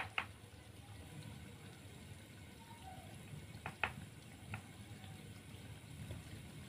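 Batter fritters frying in hot oil in a wok, a soft, steady sizzle. A few sharp clinks sound twice right at the start and again a little past the middle.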